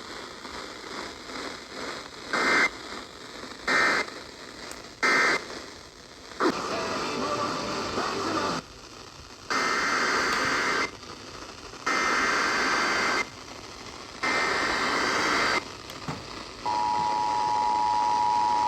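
Emergency Alert System data tones received over a hissy radio. First come three short SAME end-of-message bursts, closing the previous warning. After a stretch of static come three longer SAME header bursts announcing the next warning, and near the end the steady two-tone attention signal starts.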